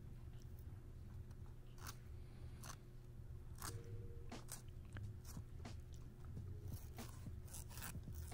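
Faint crunching and scraping of a serrated fillet knife cutting a striped bass fillet away from the rib cage, in scattered short strokes over a steady low hum.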